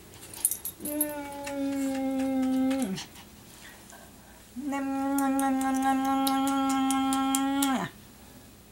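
A voice holding two long, steady, howl-like notes, the first about two seconds and the second about three, each dropping in pitch as it ends.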